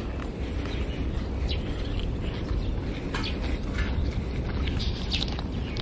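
Small birds chirping now and then, a few short high chirps scattered through, over a steady low rumble.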